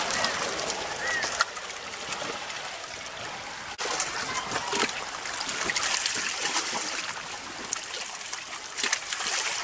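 Choppy water splashing and lapping, with a steady hiss of wind and water. A short call rises and falls about a second in, and the sound breaks off and changes abruptly a little before the four-second mark.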